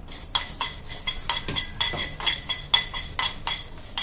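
A metal spoon stirring and clinking against a kadai while fenugreek and mustard seeds dry-roast with no oil, at about three or four ringing clinks a second.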